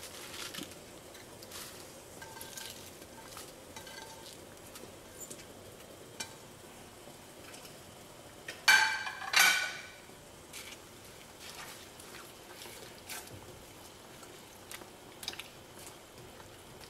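Napa cabbage blanching in a pot of boiling water, with a low steady bubbling and light clicks of a metal utensil stirring it. About nine seconds in, the utensil gives one loud ringing metallic scrape against the pot.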